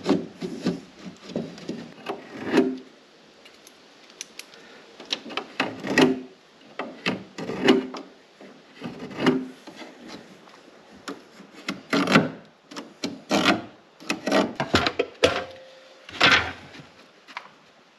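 Lengths of pine board being handled and fitted by hand: irregular knocks, taps and wood rubbing on wood, with a few louder clacks.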